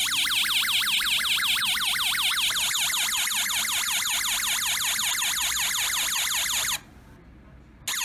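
Electronic siren sound module on a 3.3 V supply playing through a small speaker: a police-siren yelp, the pitch sweeping up and down several times a second. It cuts off about seven seconds in and comes back on just before the end.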